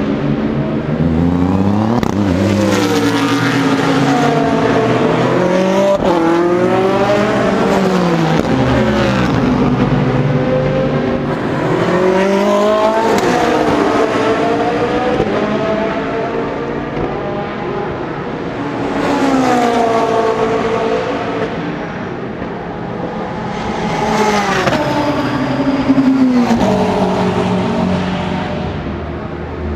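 GT3 race cars accelerating hard out of the pit lane one after another. Their engine notes climb and drop back with each upshift, and several cars overlap as they pass.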